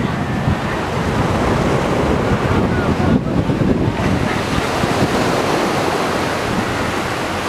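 Steady rushing noise of surf on the beach, mixed with wind buffeting the microphone.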